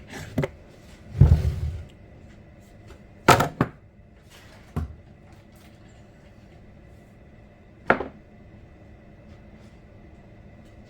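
A few separate knocks and clunks of hard objects being handled and set down: a heavy low thud a little over a second in, a double knock about three seconds in and a sharp click near eight seconds.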